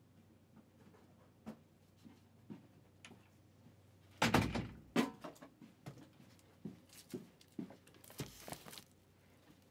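Handling noises: scattered light knocks and thumps, a louder clatter of bumps about four seconds in, and a short brushing rustle about eight seconds in.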